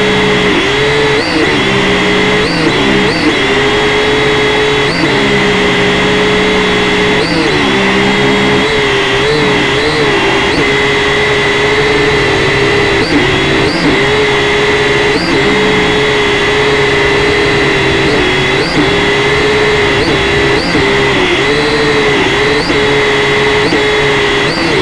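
Quadcopter's electric motors and propellers whining steadily, the pitch dipping and rising briefly again and again as the throttle is worked.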